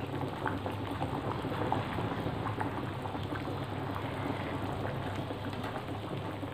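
A pot of curry broth at a hard, rolling boil, bubbling steadily with a light crackle.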